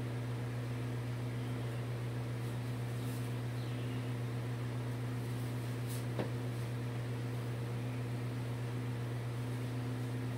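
Steady low electrical hum over a faint hiss, like a running motor or fan, with one faint tap about six seconds in.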